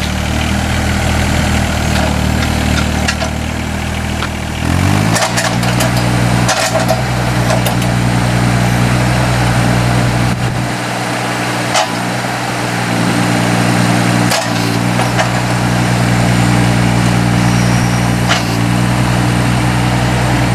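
Takeuchi TB016 mini excavator's Yanmar diesel engine running, just after start-up: at a low idle, then throttled up about five seconds in to a steady higher speed. Occasional short clanks and knocks follow over the engine.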